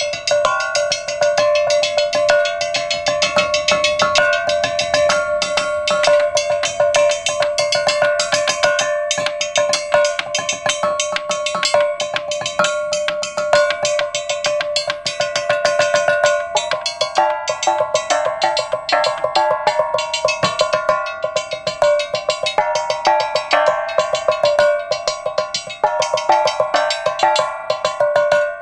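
Short lengths of rectangular metal tubing laid on wooden tables, struck rapidly with mallets like a metal xylophone: a fast, unbroken stream of pitched metallic clanks, with several ringing notes sounding over each other.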